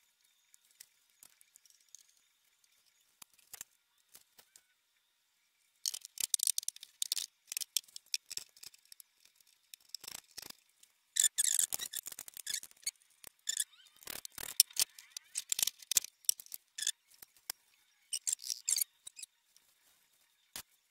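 Plastic and paper being handled: irregular bursts of crinkling and rustling with a few sharp clicks, starting about a quarter of the way in.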